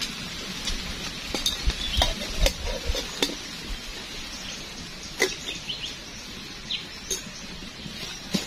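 Scattered sharp clicks and knocks, with a few dull thumps, from a wood fire burning in a hollow stump and a metal cup being handled beside it, most of them in the first three seconds and one more a little past the middle. Small birds chirp briefly in the second half.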